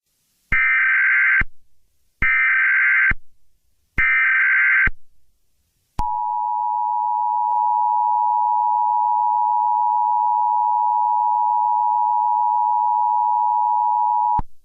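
Emergency Alert System SAME header: three short bursts of screeching digital data tones, each a little under a second long, then the EAS two-tone attention signal (853 and 960 Hz together), a steady, harsh tone held for about eight seconds before it cuts off.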